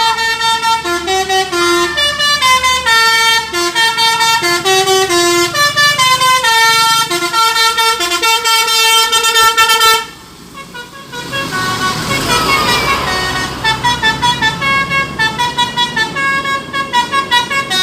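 Basuri telolet multi-tone bus horn playing a quick, stepping tune. It breaks off about ten seconds in, and after a short noisier stretch it takes up the tune again.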